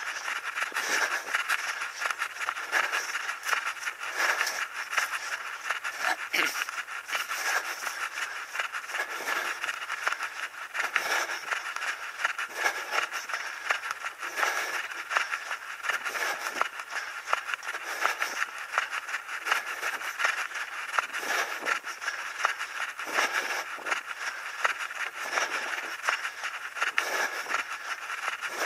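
A runner's footsteps on a paved road: a quick, even run of footfalls over a steady hiss, picked up by a body-worn action camera's microphone.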